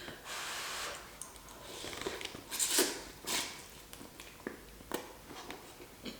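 Close-up eating sounds of instant beef ramen noodles: chewing, with a few short, loud slurps about halfway through.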